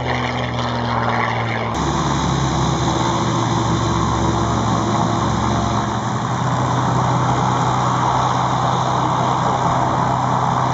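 North American P-51D Mustang's Packard Merlin V-12 engine: heard briefly in flight, then after a sudden cut about two seconds in, running steadily at low power on the ground with the propeller turning.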